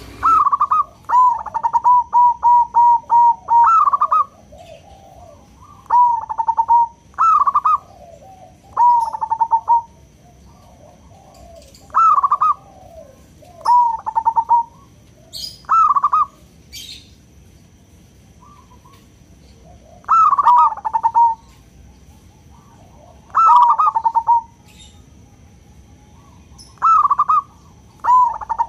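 Zebra dove (perkutut) cooing: about nine phrases a few seconds apart, each a rising opening note followed by a quick run of short, even coos, the first phrase the longest.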